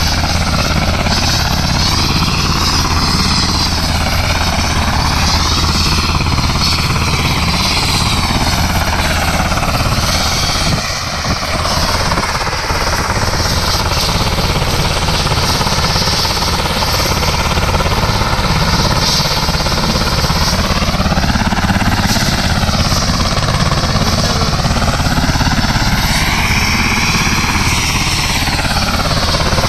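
US Army UH-60 Black Hawk helicopter running on the ground, its turbine engines and turning main rotor giving a steady, rapid thudding with a whooshing wash over it.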